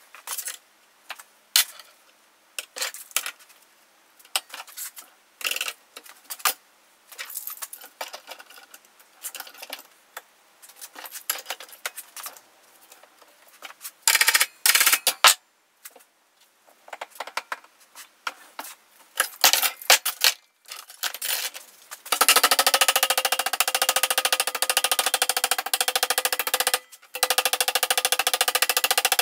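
Sheet-metal work: scattered taps, knocks and clanks of hammering and clamping small steel and aluminum pieces, then, from about two-thirds of the way in, a loud continuous rapid rattling of a power tool on metal, ringing, with a short break.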